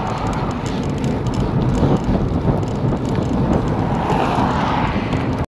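Wind rush on a bicycle-mounted camera's microphone while riding, with the tyre and engine noise of road traffic alongside, swelling as a vehicle passes about four seconds in. The sound cuts off suddenly near the end.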